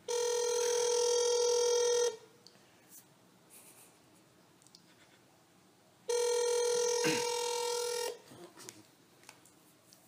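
Telephone ringback tone heard over the phone line as an outgoing call waits to be answered: two steady rings, each about two seconds long, four seconds apart.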